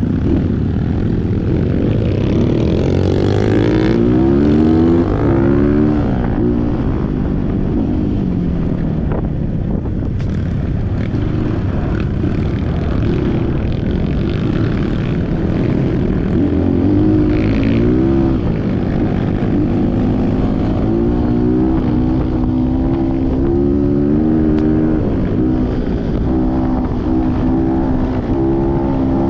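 Off-road trail motorcycle engine running under way, its revs rising and falling over and over with the throttle.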